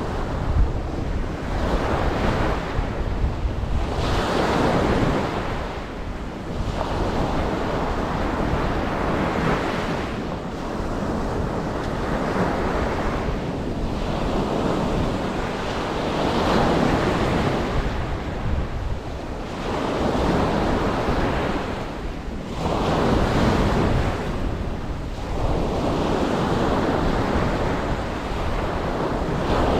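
Ocean waves breaking and washing on a beach, the surf swelling and falling away every few seconds over a steady low rumble.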